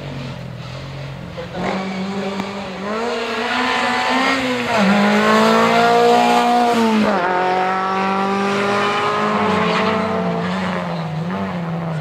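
Historic Škoda 130 RL rally car's engine at high revs going past. Its pitch climbs, dips at a gear change about five seconds in, and climbs again. About seven seconds in it drops sharply, then runs on at lower revs, slowly falling away.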